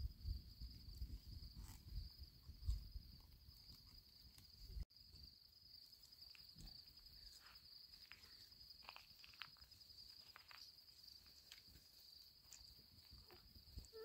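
Crickets chirping faintly in a steady, high, continuous trill. A low rumble fills the first five seconds and cuts off abruptly; after that come scattered soft clicks and rustles.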